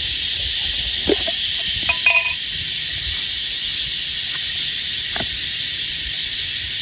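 Cicadas shrilling in a steady, high, even chorus. A few light knocks sound about a second, two seconds and five seconds in.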